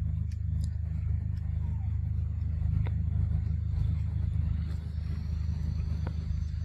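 Steady low hum of a running engine or motor, with a few faint clicks over it.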